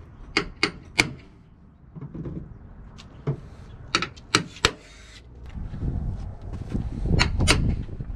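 Hammer tapping a punch against a metal bumper: sharp metallic strikes in short runs, three near the start, about five in the middle and two more near the end. Each blow dents the metal to give the drill bit a starting point so it won't wander.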